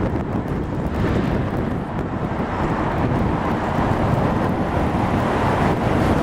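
Steady rush of road traffic on a busy arterial road, engines and tyres passing, with wind buffeting the microphone. It builds a little toward the end.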